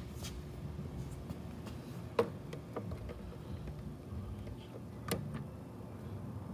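Light clicks and taps from handling plastic headlight parts, two sharper clicks about two seconds in and about five seconds in, over a low steady background hum.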